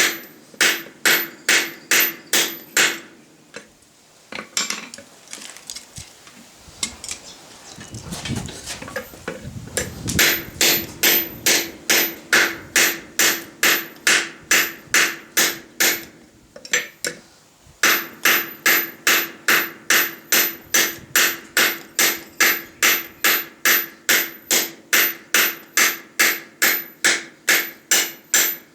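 Hand hammer forging steel on an anvil, blows falling evenly about three a second, each with a bright metallic ring. The hammering stops for several seconds after the first few seconds, with only a low rough noise, then resumes and pauses once more briefly before running on.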